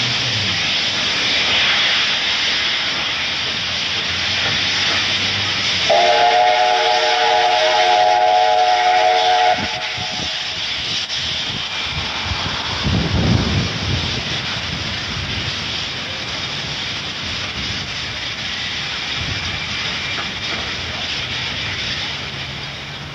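Steam locomotive 3801 hissing hard as steam blows from its cylinder drain cocks while it pulls away. About six seconds in, its whistle sounds a chord of several notes for about three and a half seconds. A short low rumble follows a few seconds later.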